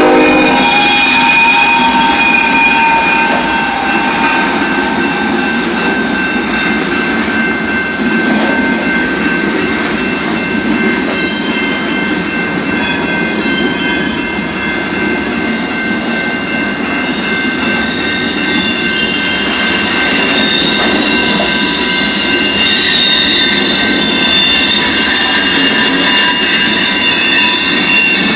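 Freight train of covered hopper cars rolling past at a grade crossing: a loud, steady rumble of steel wheels on rail with high-pitched wheel squeal held throughout. In the first second a locomotive horn note ends as the trailing locomotive goes by.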